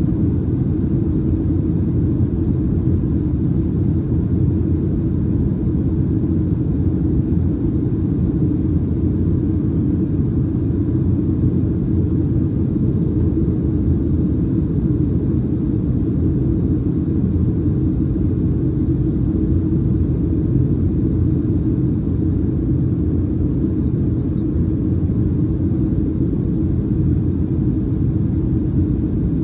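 Steady low cabin rumble inside a Boeing 737-700 descending on approach: engine and airflow noise heard through the fuselage at a window seat.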